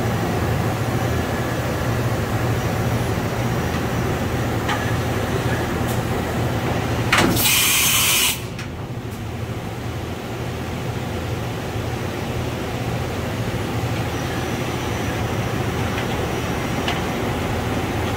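Steady hum of a powered-up Matsuura MC-510VG CNC vertical machining center standing idle, with low steady tones under it. About halfway through, a loud hiss lasts just over a second and cuts off suddenly.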